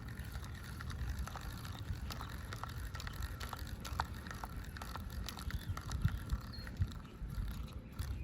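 Fishing reel being cranked to wind in line, giving a run of small irregular clicks from the reel's mechanism over a low rumble.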